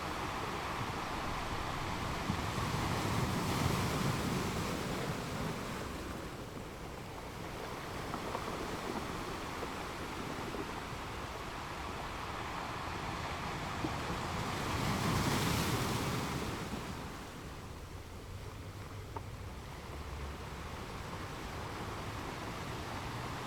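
Sea waves crashing on a rocky beach over a steady wash of surf. Two waves break louder, one about three to five seconds in and another about fifteen seconds in.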